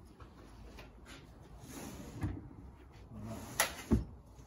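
Homemade wooden slatted pull-out bed frame being slid out and its cushions folded over: sliding and rustling, a knock about two seconds in, then two sharp wooden knocks near the end.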